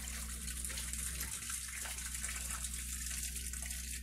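Tap water running into a plastic bowl as vegetables are rubbed clean by hand under the stream, a steady splashing hiss. A steady low electrical hum sits underneath.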